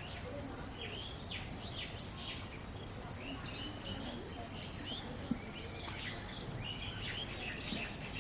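Small birds chirping, many short rising and falling calls in quick succession, over a steady low background rumble. A single sharp click about five seconds in.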